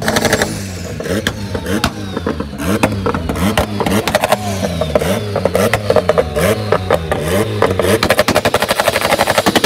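A vehicle engine revving up and down again and again, with sharp crackling pops, breaking into a fast, even rattle of pops near the end.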